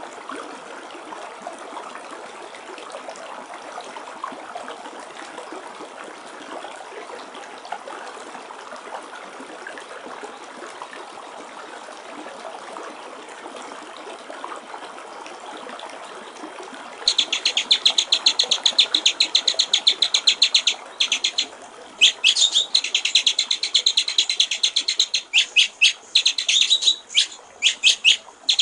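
Trickling water, then, about 17 seconds in, a white-rumped shama (murai batu) breaks into a loud, fast run of high, rapidly repeated notes, a rattling trill broken by a few short pauses over the water.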